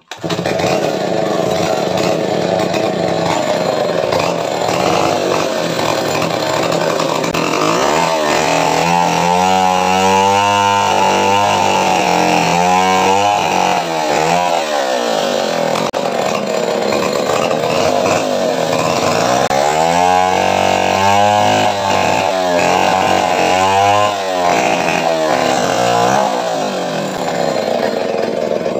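Chainsaw starting up suddenly and running hard, cutting into wood, its tone wavering as the cut goes on.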